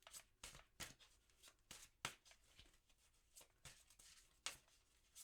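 Tarot cards being shuffled and handled by hand: faint, irregular card snaps and flicks, with two sharper snaps about two seconds in and near the end.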